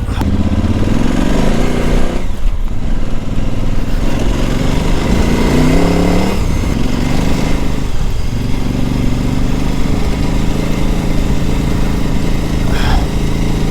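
KTM 950 Adventure S's LC8 V-twin engine under way off-road, rising in pitch twice with a brief drop after each, then running at a steady pitch.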